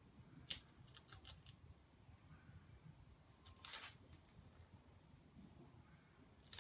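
Near silence broken by a few faint sharp clicks and scrapes of a small hand tool on the spray-painted board, and one short hiss about three and a half seconds in.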